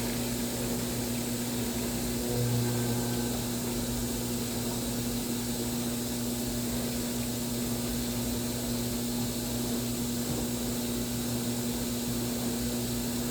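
Washing machine running on a whites cycle with a load of towels, giving a steady motor hum that swells slightly about two seconds in.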